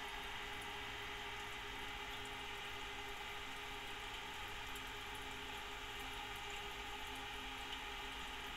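Twin-fan aquarium cooling fan running steadily, a hum with several held tones over a hiss, a running noise the owner calls extremely loud. Water bubbles and trickles from the tank's filter and air lines underneath.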